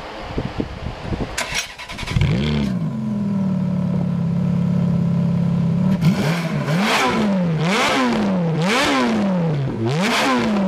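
Ferrari F430's V8 starting up about two seconds in with a flare of revs, then holding a steady fast idle. From about six seconds in it is blipped repeatedly, the revs rising and falling about once a second.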